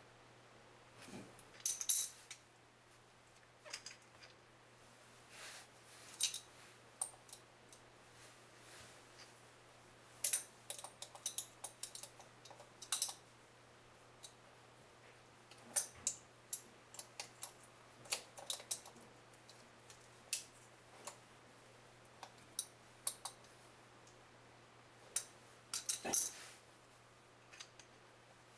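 Scattered small clicks and metal taps of pliers working on a toilet's angle valve fitting and a plastic inline water-filter housing while a bidet supply line is connected, over a faint steady low hum.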